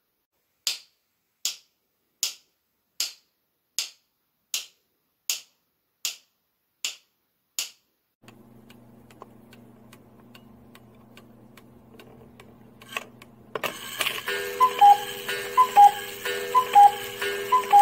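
Ten sharp, evenly spaced clicks, a little over one a second, knocked out on wooden spoons as a clock's tick-tock. After a few seconds of faint steady hum, a cuckoo clock calls 'cuckoo' four times, each call a high note falling to a lower one, over a steady hum and hiss.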